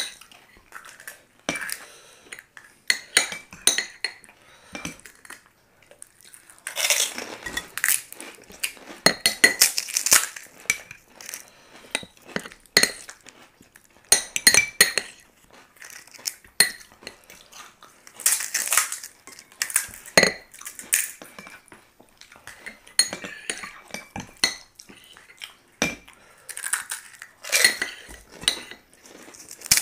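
Metal spoons clinking and scraping on plates and bowls as fuchka (pani puri) shells are cracked and filled, in quick irregular clicks with a few denser, noisier stretches.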